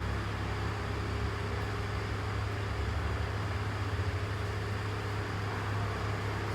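Steady low rumble of a motor vehicle with an even hiss over it.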